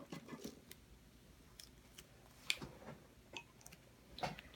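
Faint, scattered clicks and crinkles of adhesive craft vinyl and its paper backing being handled and pressed down by hand.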